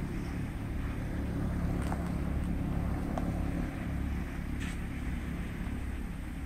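Low, steady rumble of motorbike traffic on a nearby road, with a few faint sharp clicks.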